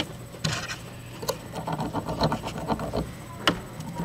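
A steel nail scraping and clicking against a small galena cube in a scratch hardness test: a string of short scrapes and ticks, with one sharper click about three and a half seconds in. The nail scratches the galena, a sign that it is softer than steel.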